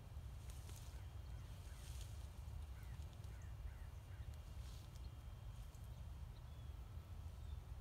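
Wind rumbling on the phone's microphone, with scattered rustles in dry grass and brush. A run of faint short bird chirps comes about three seconds in.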